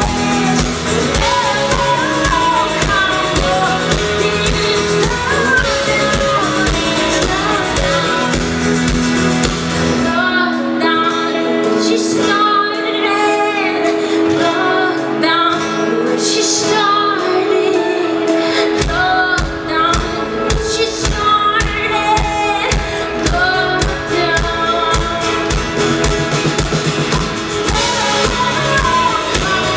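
Live pop-rock band with a female lead singer, loud in a large hall. About a third of the way in, the drums and bass drop out, leaving a held chord under the voice. About two-thirds of the way in, the full band crashes back in.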